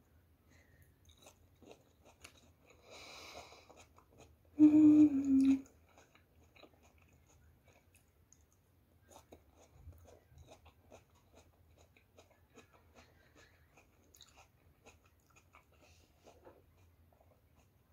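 Close-up chewing of battered fried fritters: soft crunching and wet mouth clicks. About five seconds in comes a short two-note closed-mouth "mmm" hum, the loudest sound.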